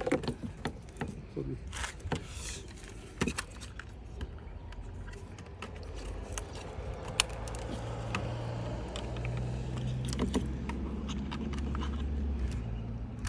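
Clicks and light rattles of plastic door trim pieces and wiring being handled and fitted into a car door. From about halfway a low steady drone builds underneath.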